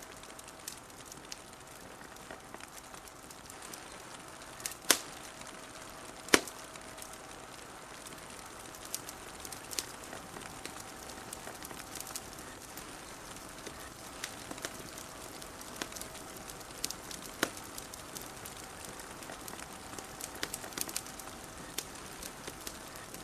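Wood fire crackling, with scattered sharp pops over a steady hiss; the two loudest pops come about five and six seconds in.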